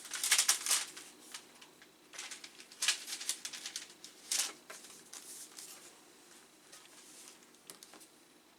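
Crinkling and light clicks of a software disc in a plastic sleeve and its packaging being handled, loudest in the first second, with two sharper clicks a little later and quieter rustling after that.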